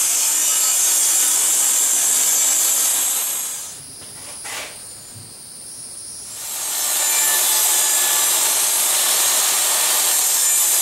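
DeWalt jobsite table saw cutting along the length of a plywood door-frame piece, a loud steady high-pitched cutting noise. It drops away for about three seconds in the middle, with a single click, then comes back for a second steady pass.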